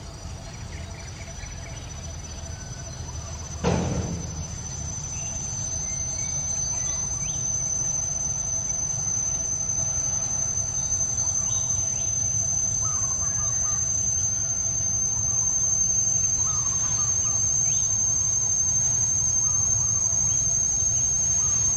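Steady high-pitched drone of insects, with a few faint short chirps. A single sharp thump comes about four seconds in.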